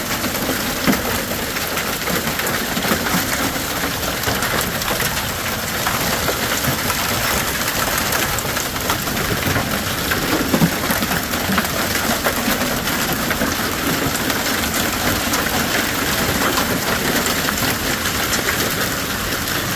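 Hail and rain falling steadily, a dense patter of countless small hits on surfaces.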